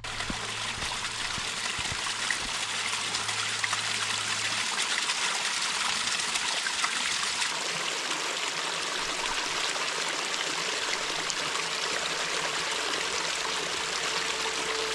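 Small mountain stream trickling and splashing down a rocky channel, a steady rush of water.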